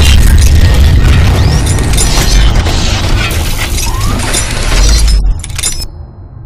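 Logo-reveal intro sound effects: a deep boom hits at the start, then a dense crashing, glass-shattering effect runs over music, with a second boom near the end before it falls away.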